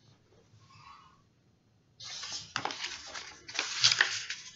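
Rustling and knocking of a picture book being handled and lowered, starting about two seconds in, with several short sharp taps among the paper noise.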